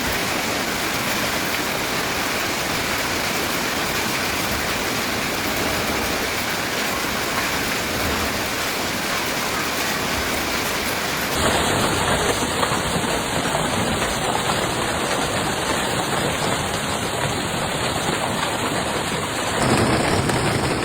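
Heavy storm precipitation pelting down in a dense, steady hiss. Its character changes abruptly about halfway through and again near the end, as different storm recordings follow one another.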